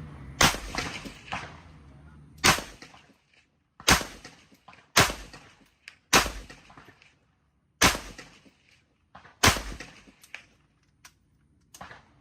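M4A1 carbine (5.56 mm) firing single shots, about seven loud cracks spaced one to two seconds apart, each trailing off briefly. A few fainter shots follow near the end.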